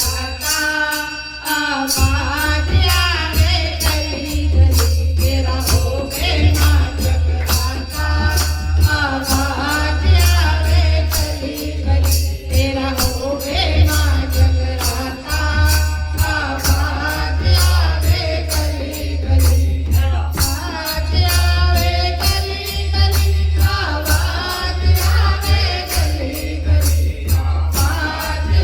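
Hindi devotional kirtan (a Mata jagrata bhajan): voices singing over a steady percussion beat, with a heavy bass line that comes in about two seconds in.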